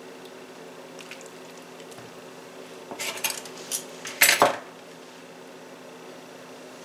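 A serving spoon set down in a skillet and cookware knocking, a cluster of clatters about three to four and a half seconds in, loudest near the end of the cluster. A low steady hum runs beneath.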